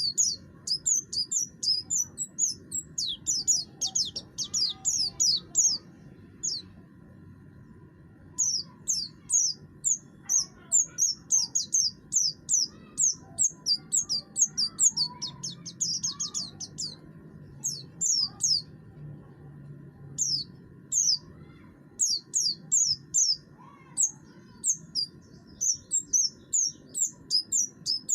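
Pleci buxtoni white-eye singing harshly in fast runs of short, high, downward-slurred chirps, several a second, with brief pauses between the runs.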